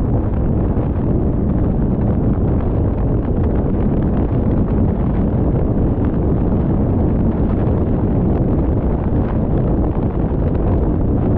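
Steady low rumble of a car driving along a rough country road: tyre and road noise with faint irregular ticking.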